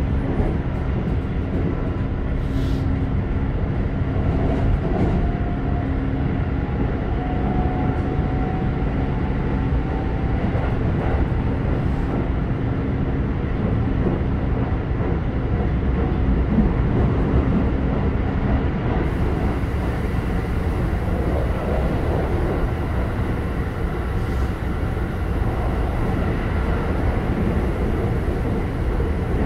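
Running sound inside a Keikyu 1000-series electric commuter car with Toyo IGBT-VVVF traction control: a steady rumble of wheels and running gear under a faint motor whine, one of whose tones rises slightly in pitch several seconds in.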